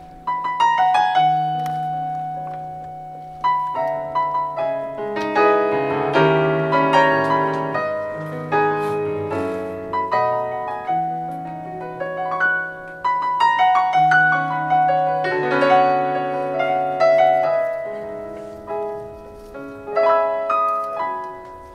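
Piano passage played on a digital stage piano with a piano sound: chords under a melody, each note struck and fading, in phrases that ease off briefly a few seconds in and again near the end.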